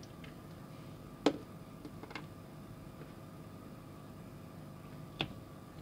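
A few sharp clicks and taps of small plastic toy-car parts being handled and set down: the loudest about a second in, a smaller one soon after, and another near the end. Quiet room tone lies underneath.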